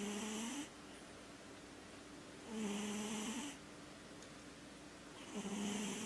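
Sphynx cat snoring in its sleep: pitched, hissing snores about a second long, spaced two to three seconds apart. One snore ends just after the start, another comes in the middle, and a third begins near the end.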